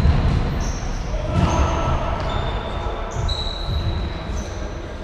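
Indoor six-a-side football play in a sports hall: sneakers squeaking on the court floor again and again in short high-pitched squeaks, over the thuds of the ball and players' feet and the echo of the hall.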